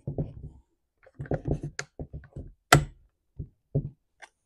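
Plastic top cover of a Stihl MS211 chainsaw being pressed and fitted into place, giving a string of knocks, taps and clicks, with one sharp click a little past the middle.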